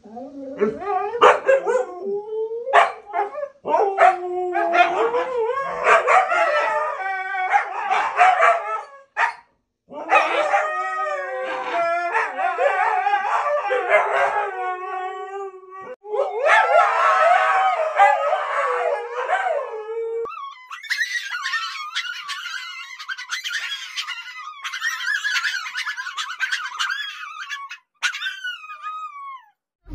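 Siberian huskies 'talking' to one another: runs of yowling, woo-wooing vocalisations with the odd bark, in bouts a few seconds long. About twenty seconds in the sound turns thinner and higher, a husky howling with gliding pitch.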